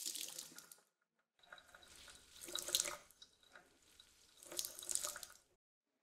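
Water squeezed out of a wet cloth splashing and dripping into a sink, in several surges with short breaks between.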